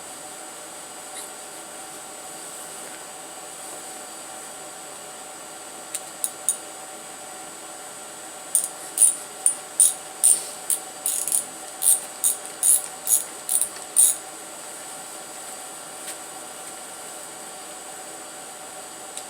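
Socket ratchet clicking: a few clicks about six seconds in, then a run of about fourteen quick ratcheting strokes, two to three a second, over a steady background hum.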